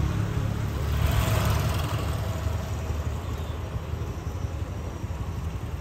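Motorcycle and scooter engines running on a street, a low pulsing rumble that swells about a second in and then slowly fades as the bikes ride by.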